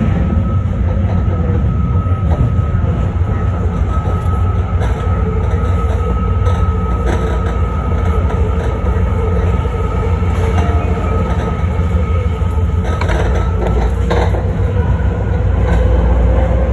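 BART Fleet of the Future train running along the track, heard from the front cab: a steady loud rumble of wheels on rail with a steady high-pitched whine over it. A few sharp clicks near the end.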